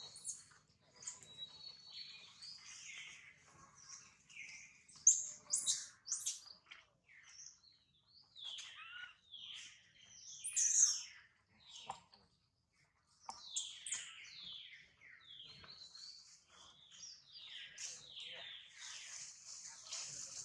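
Wild birds chirping and calling in forest trees, many short high calls and falling sweeps overlapping, with a few louder calls about five and eleven seconds in.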